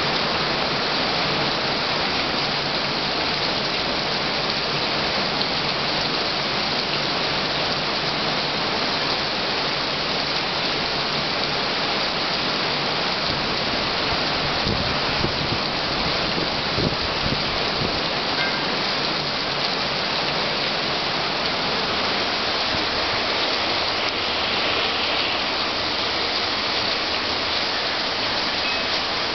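Heavy thunderstorm rain falling steadily, an even hiss of rain with no letup. A few low thumps come about halfway through.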